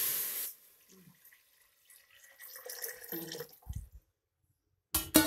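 Water poured into a pot of hot oil and sautéed spice paste, hissing loudly at first and fading out within about half a second; then quieter pouring and handling sounds, with a low knock near the end.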